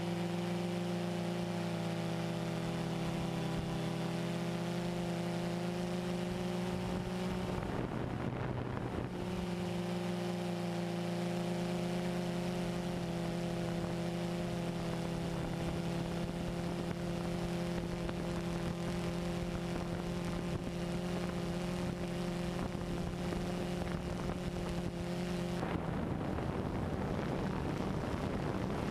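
Multirotor drone's motors and propellers humming steadily at one pitch. Twice the hum gives way to a rush of wind noise on the microphone: for a second or so about eight seconds in, and again near the end.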